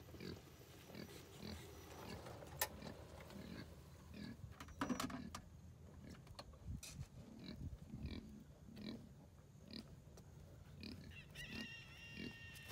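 A pig grunting softly, short low grunts repeating about twice a second, with a single sharp knock about two and a half seconds in.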